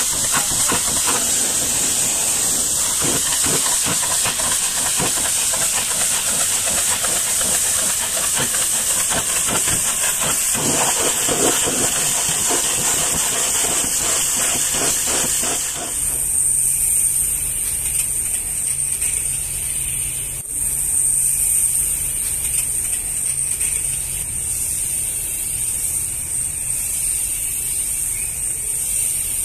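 High-pressure washer jet spraying water, a loud steady hiss, first against a truck tyre and wheel, then against a tanker's steel shell. About halfway through the hiss turns narrower and steadier, with a low hum underneath.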